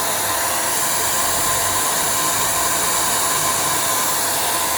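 Vacuum cleaner motor running steadily, a loud even rush of air with a high whine.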